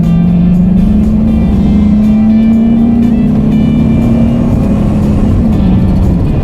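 Cabin sound of a 2002 Chevy Suburban's V8 and tyres on the road while driving: the engine drone climbs slowly in pitch as it accelerates, then falls away near the end as it lets off.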